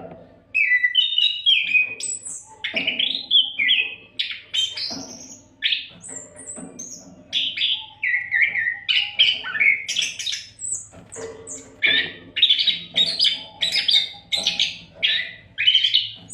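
Oriental magpie-robin (kacer) singing a fast, varied song of whistled phrases, chirps and trills in near-continuous succession, over a faint steady hum.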